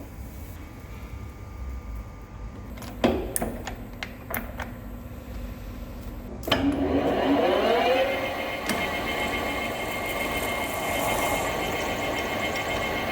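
A metal lathe's spindle starting up about halfway through: a whine that rises in pitch as it comes up to speed, then settles into a steady run. Before it there is a low hum and a few sharp clicks and knocks.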